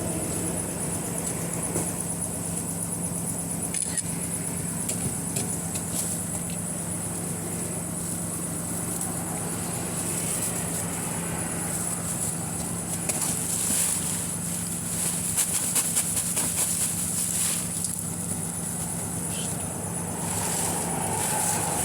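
A machine running steadily with a constant hum, and a run of clicks and rattles between about 13 and 17 seconds in.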